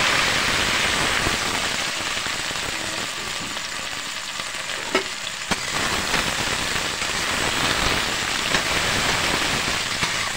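Chopped okra frying in hot oil in a pan: a loud, steady sizzle, strongest at the start and easing a little. There are a couple of sharp clicks about five seconds in.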